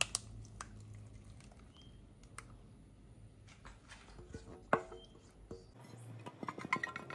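Thick pandan batter poured from a bowl into a paper-lined round metal cake tin: faint soft plops and squelches with scattered light clicks and knocks, which come thicker near the end.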